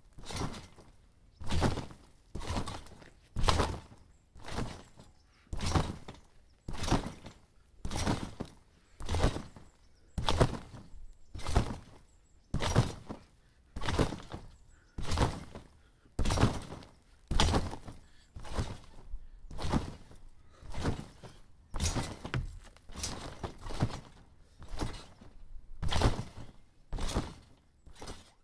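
Someone jumping on a trampoline: a steady run of bounces, about one every 0.7 seconds, each a thunk of the mat with a short springy ring after it.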